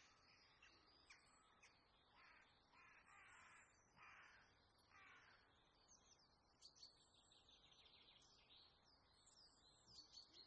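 Faint bird calls: a run of harsh, repeated calls about two to five seconds in, then rapid high chirping through the second half.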